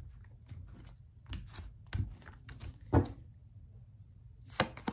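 Tarot cards being shuffled and handled against a tabletop: irregular short taps and flicks, with the loudest knock about three seconds in and a couple more near the end.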